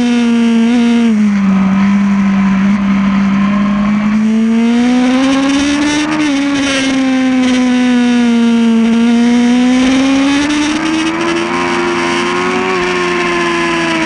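Yamaha R1's inline-four engine at racing speed. The revs dip about a second in, then climb and fall twice in long smooth sweeps.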